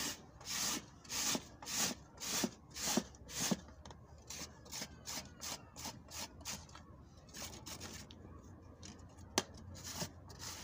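Carrot being grated on the medium holes of a metal box grater: a steady rhythm of rasping strokes, about two a second, heavier for the first few seconds, then lighter and quicker, with one sharp tap near the end.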